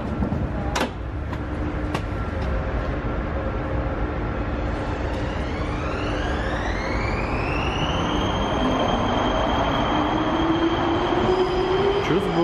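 Prague metro train running in a tunnel, a steady rumble of wheels and running gear. An electric motor whine rises in pitch from about five to eight seconds in as the train gathers speed, then holds steady. There is a sharp click about a second in.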